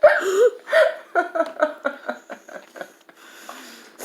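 A person's voice in short, rapid non-speech bursts, a quick run of them about a second in, then quieter.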